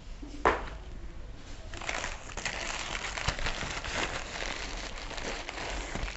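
Packaging wrapper crinkling and rustling as a book is unwrapped from it by hand. There is one sharp rustle about half a second in, then steady crackly crinkling from about two seconds in.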